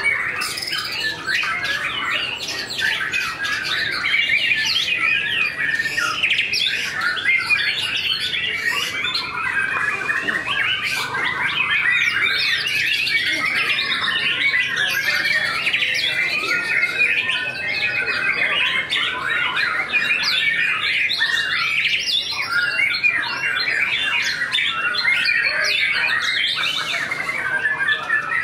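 White-rumped shama (murai batu) in full song: an unbroken, dense stream of fast, varied whistles and harsh notes.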